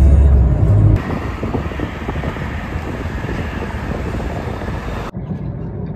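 The tail of a bass-heavy music track cuts off about a second in. A steady rush of road noise from a car moving at highway speed follows, dropping suddenly to a quieter in-cabin rumble near the end.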